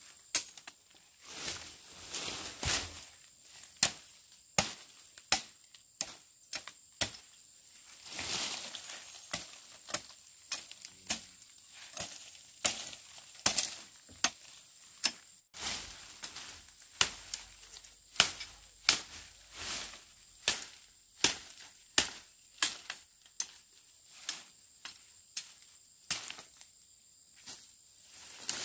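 A blade chopping in steady repeated strokes, about one and a half strikes a second, each a sharp knock, with a few short pauses between runs.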